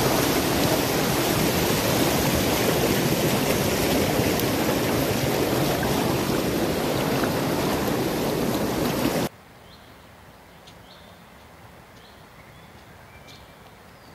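A river in spring flood, its water rushing steadily. About nine seconds in the sound cuts off abruptly to a much quieter background with a few faint high chirps.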